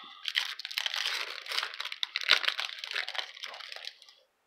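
Trading card pack wrapper being torn open and crinkled in the hands, a dense crackling with a sharp snap a little over two seconds in, fading out near the end.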